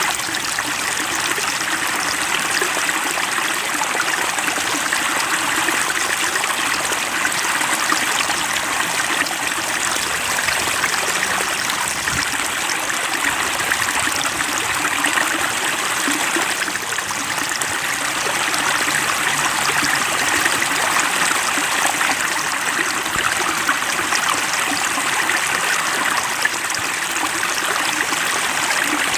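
Steady running water, like a flowing stream, with an even, unbroken rush and trickle.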